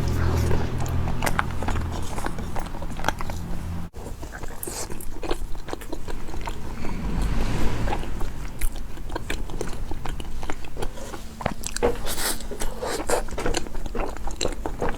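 Close-up eating sounds: a person biting and chewing soft sweets such as mochi daifuku, with many small wet clicks and smacks. A low hum under the first four seconds stops abruptly.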